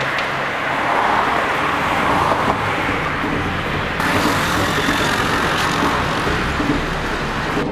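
Road traffic: cars passing on a street, a rushing of tyres and engines that swells and fades twice.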